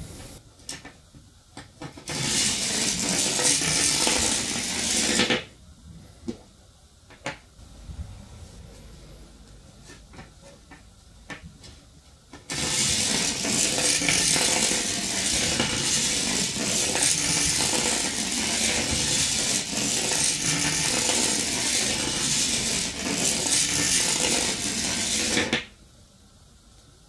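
Battery-and-neodymium-magnet train running through a bare copper wire coil: a loud, steady metallic rattle of the magnets scraping along the wire turns. It comes in two runs, one about two to five seconds in and a longer one from about twelve seconds in until near the end, each stopping suddenly; between them there are only small clicks of the parts being handled.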